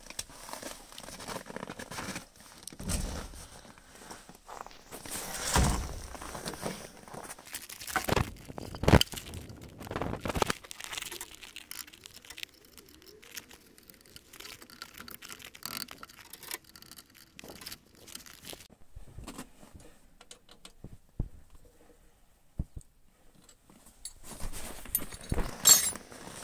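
Handling noises while heavy lead-acid batteries are set into a truck's battery box and connected: scattered clunks and knocks, boots crunching in snow and a rustling jacket, with a loud metallic clatter of tools near the end.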